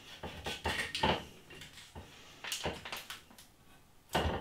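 Plates and pans being handled on a kitchen worktop: a few scattered clatters and knocks, the loudest near the end.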